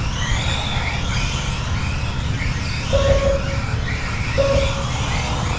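Kyosho Mini-Z Euro Truck RC cars racing, their small electric motors whining up and down in pitch as they speed up and slow for the corners. A timing-system lap beep sounds about three seconds in and again a second and a half later, over a steady low rumble.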